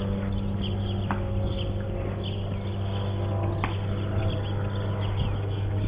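Small birds chirping repeatedly over a steady low hum, with two sharp clicks about a second and three and a half seconds in.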